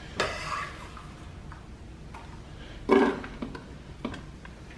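A few knocks and scrapes as diced onions and shallots are scraped with a scraper into a crock pot's insert, the loudest knock about three seconds in.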